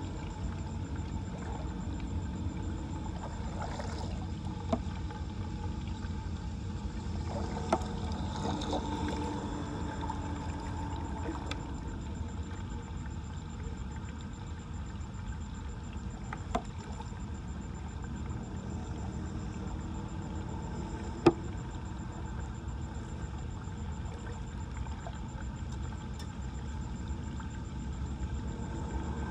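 Floodwater pouring and trickling into a storm drain: a steady low rush of water, broken by a few sharp clicks or knocks, the loudest about two-thirds of the way through.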